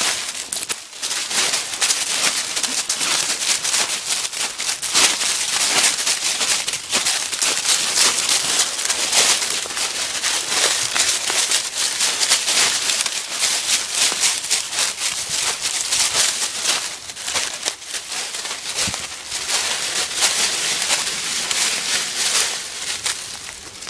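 Dry fallen leaves crunching and rustling underfoot, a dense, steady run of crackles as a person and a small dog walk through thick leaf litter.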